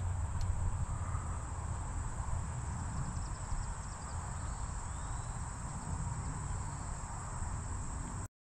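Insects chirping in a steady high drone, over a low rumble. Both cut off abruptly just before the end.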